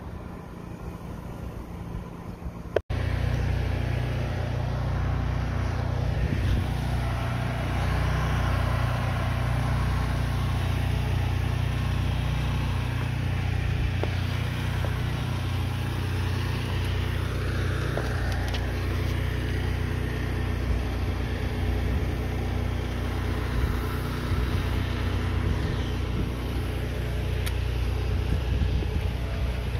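An engine running steadily at a constant speed, starting abruptly about three seconds in after a quieter stretch.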